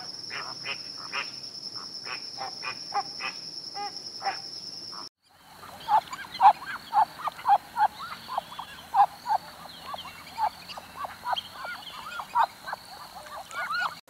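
A flock of flamingos calling with short honks over a steady high tone. About five seconds in the sound cuts to ducks quacking, louder and busier, several short calls a second.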